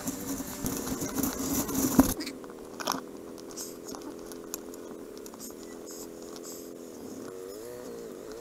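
Motorcycle engine running at road speed with wind rushing over the microphone, cut off abruptly by a sharp knock about two seconds in. After that the engine runs slowly with a steady note, its pitch rising and falling briefly near the end.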